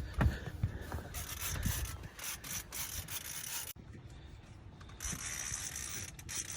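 Fishing reel ratcheting and clicking while a hooked salmon is played on the line. The sound drops away for about a second a little past the middle, and a steady high hiss follows.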